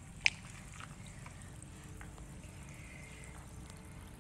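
Faint sounds of a hand moving in a glass bowl of water, over a low steady hum, with one sharp click about a quarter of a second in.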